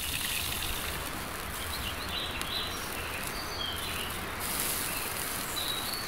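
Sausages frying over a wood fire, a steady sizzling hiss, with a few faint bird chirps over it.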